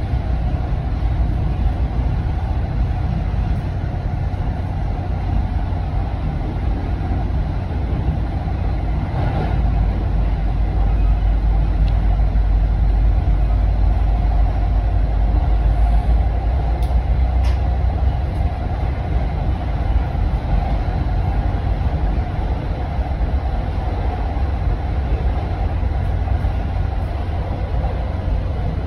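MBTA Commuter Rail passenger coach running along the track, heard from inside the car: a steady rumble and rail noise, with a couple of faint clicks.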